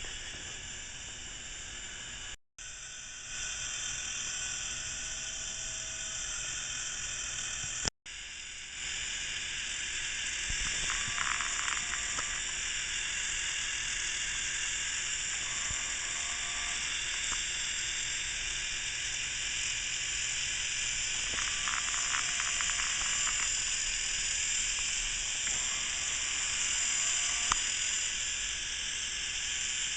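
K'NEX Sawblade Thrill Ride model running on its motor, the plastic gears and chain giving a steady whirring rattle with brief squeaks now and then. The sound cuts out briefly twice in the first eight seconds.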